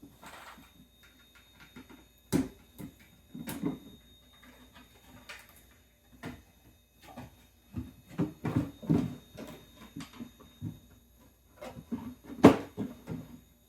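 Crawler course pieces being handled and clipped together with braces: irregular clicks and knocks, busiest about eight to nine seconds in, with the loudest knock about twelve seconds in.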